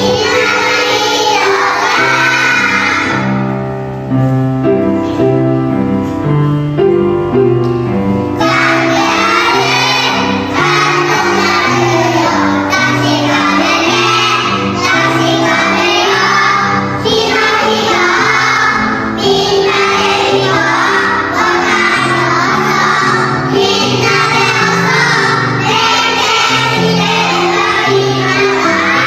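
A group of young children singing a song together over an instrumental backing track. The voices drop out for about five seconds a few seconds in, leaving only the backing music, then come back in.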